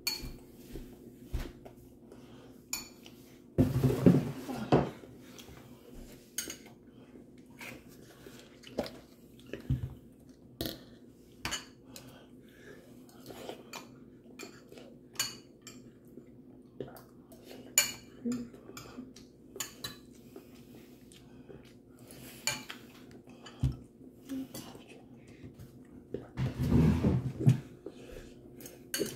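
A metal spoon clinking and scraping against ceramic bowls while eating, in irregular single clinks, with two louder spells of clattering and handling noise about four seconds in and near the end.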